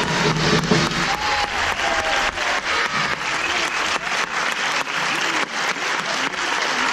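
Audience applauding: many hands clapping steadily, filling the hall.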